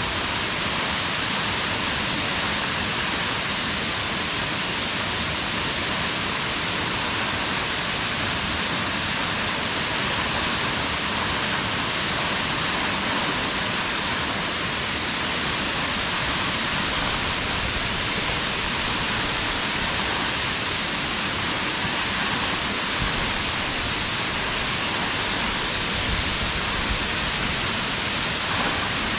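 A waterfall's steady rush of falling water, an even unbroken hiss strongest in the upper-middle range, without pause or change.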